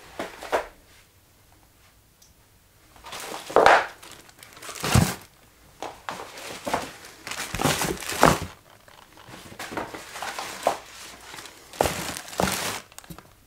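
Clear plastic bags crinkling and rustling as they are handled and moved in and out of a cardboard box, in irregular bursts after a quiet first couple of seconds, with a soft thump about five seconds in.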